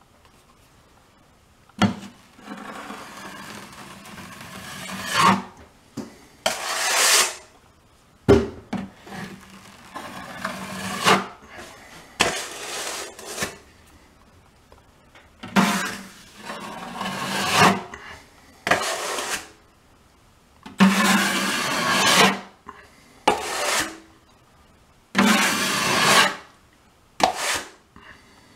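Wide drywall trowel scraping joint compound across a ceiling patch in repeated sweeping strokes, about a dozen swipes with short pauses between them, applying a thin second coat.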